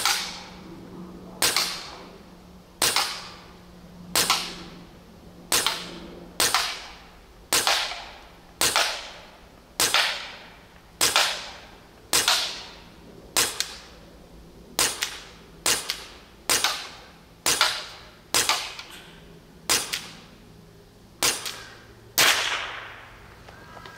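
Huben GK1 semi-automatic high-pressure PCP air pistol firing a string of about twenty sharp shots, roughly one a second, each dying away quickly.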